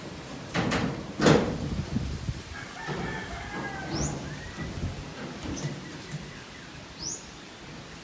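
Two loud bangs, like knocks on building material, in the first second and a half, then a drawn-out bird call about three seconds in and two short rising high chirps.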